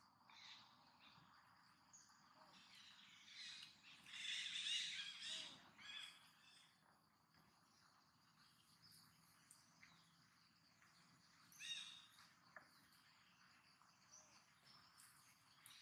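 Faint, high-pitched animal calls with a wavering pitch over a quiet background: a run of calls from about three to six seconds in, and one short call near twelve seconds.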